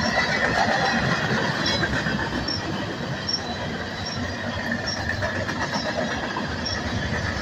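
Freight train's covered hopper cars rolling past at close range: steady rumble and clatter of steel wheels on the rail, with a thin, steady high wheel squeal and a faint high chirp repeating a little more than once a second.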